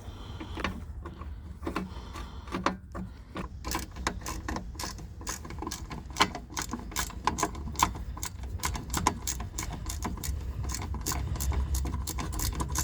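Ratchet wrench with a 10 mm socket clicking as it is swung back and forth to back out a bolt on the radiator cooling fan assembly. The clicks are sparse at first, then come fast and dense in quick runs from about four seconds in.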